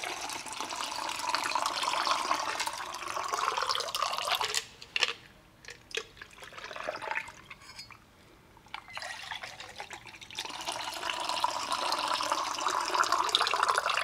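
A Bloody Mary mix with ice being rolled between two metal cocktail shaker tins, poured in a stream from one tin into the other. There are two pours, with a quieter pause between them that holds a few short knocks.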